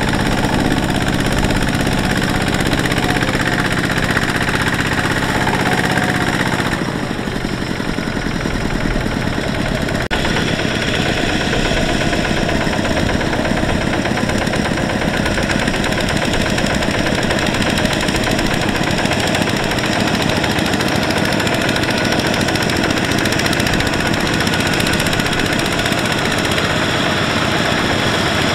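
Kubota RT120 power tiller's single-cylinder diesel engine running with a rapid chugging beat as the tiller hauls a trailer of rice sacks bogged in deep mud. The engine note changes about seven seconds in.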